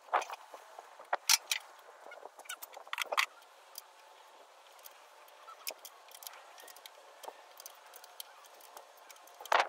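Metal car parts clanking and knocking as the radiator and AC condenser assembly is worked free from a car's front end: several sharp clatters in the first three seconds, another near the end, and light ticking in between.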